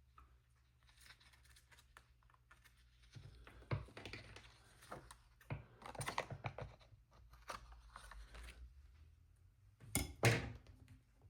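Scissors snipping and paper being handled on a desk: scattered soft clicks and rustles, with two sharper snips near the end.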